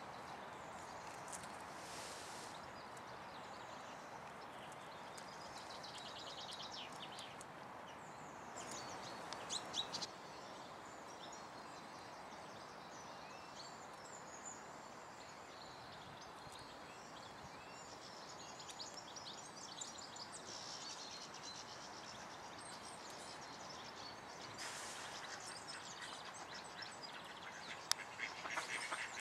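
Faint steady background noise with songbirds singing in short bursts of rapid, trilling notes. The loudest phrase comes about nine seconds in, and a busier run of fast repeated notes starts near the end.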